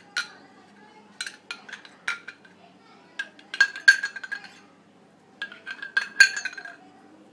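Small brass gas-stove burner jet clinking and scraping against a stainless-steel bowl as it is scrubbed by hand in cleaning liquid, with the bowl ringing briefly at each knock. The clinks come in four bursts. The jet is being cleaned of the carbon that clogs its holes and causes the stove's low, unsteady flame.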